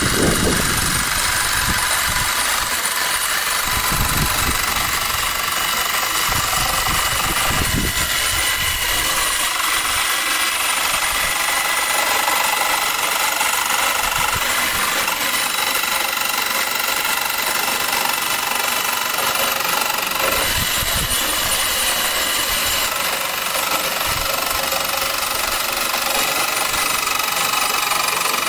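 Corded Bosch jigsaw running steadily, its reciprocating blade sawing through a plastic OEM fender flare on a Jeep Wrangler JK.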